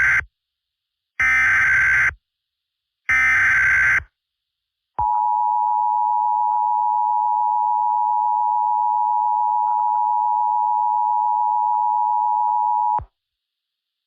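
Mock Emergency Alert System tones: the tail of one SAME header data burst, then two more short, screechy data bursts about two seconds apart, followed after a second's gap by the steady two-tone EAS attention signal, held for about eight seconds and cutting off sharply.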